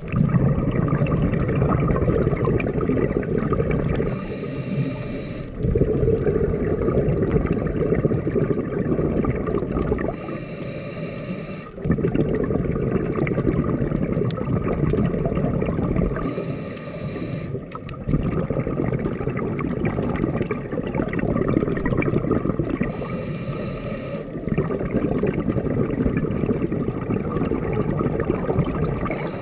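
Scuba diver breathing through a regulator underwater: a rumble of bubbling exhaled air alternating with a short hiss from the regulator, in a slow cycle of about one breath every six seconds.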